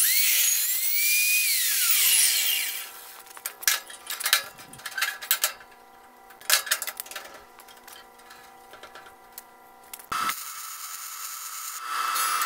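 Evolution S380CPS cold cut saw motor switched on, whining up to speed and spinning back down over about three seconds. Then scattered metal clinks and knocks of handling, and about ten seconds in a MIG welding arc starts with a steady hiss.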